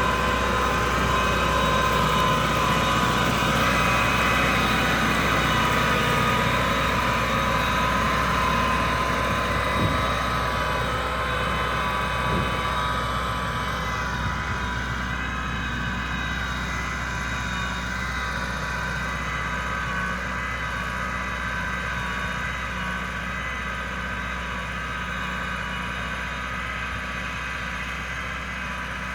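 YTO 1024 tractor's diesel engine running steadily, easing a little quieter over the second half.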